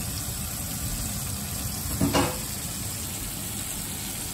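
Breaded fish pieces sizzling as they shallow-fry in hot oil in a stainless steel skillet, a steady bubbling hiss. A short pitched sound cuts in about two seconds in.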